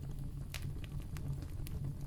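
Wood campfire burning: a steady low rumble with a few sharp crackles and pops scattered through it, about four in two seconds.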